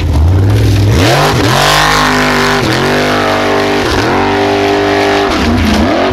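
Racing engine revving hard. Its pitch climbs and drops back sharply about four times.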